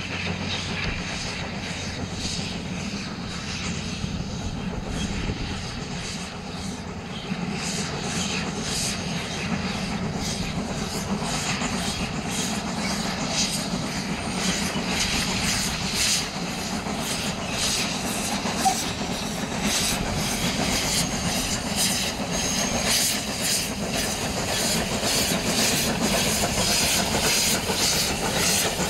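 Steam tank locomotive hauling a short passenger train, exhaust chuffing in a regular beat with a hiss of steam from the cylinders, growing steadily louder as it approaches.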